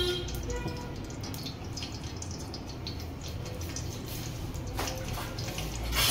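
A ladle of cooking oil heating in a steel pot over a gas burner that has just been turned up, ahead of a tadka: a low steady hiss with faint scattered ticks. There are two short knocks, the louder one near the end.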